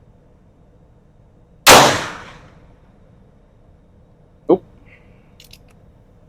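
A black-powder percussion gun loaded with Pyrodex and a .454 round ball fires one loud shot about a second and a half in, ringing out for about a second. A much weaker short knock with a brief wavering tone follows about three seconds later, then a few faint clicks.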